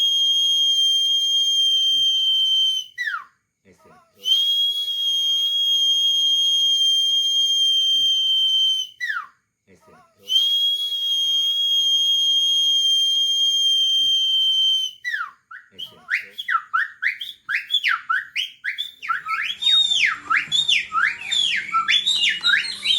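A man whistling imitations of songbird calls: three long, steady, high whistles of about five seconds each, each ending in a quick downward slide. These are followed by a fast run of rising-and-falling chirping notes that grows busier toward the end.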